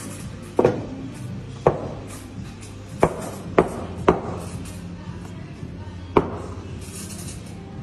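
A stainless steel milk pitcher knocked down on the counter six times at uneven intervals, each knock sharp with a short metallic ring, the barista's tap to settle the steamed milk's foam before pouring.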